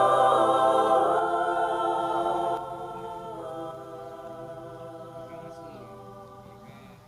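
Background song ending on a held, choir-like vocal chord. It drops in level about two and a half seconds in, then fades away slowly.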